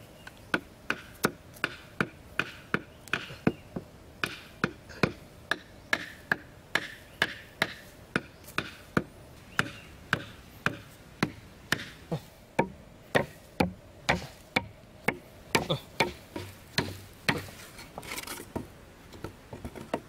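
Hammer striking nails into wooden poles and crosspieces, a steady run of sharp blows, about two to three a second.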